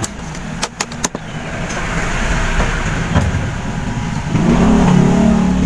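A few light metal taps on a small fan motor's shaft, then a steady low mechanical hum that swells and grows loud about two-thirds of the way in.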